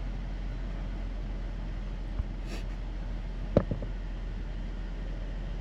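2010 Buick Enclave's V6 engine idling steadily while still cold, its idle settling to normal now that a vacuum leak in an intake hose is fixed. A faint click a little after two seconds in and a sharper one about a second later.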